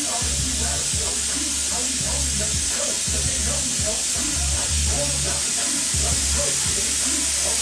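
Wire-feed (MIG) welder arc laying a bead on steel plate: a steady crackling sizzle, like bacon frying.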